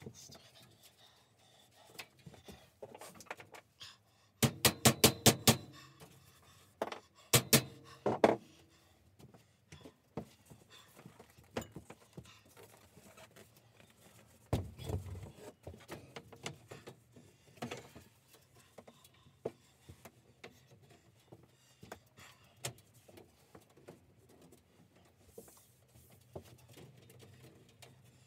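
Steel boltless shelving and chipboard shelf panels being knocked into place: a quick run of about six sharp knocks around five seconds in, a few more knocks soon after, a dull thud about halfway through, and scattered lighter clicks and clatter.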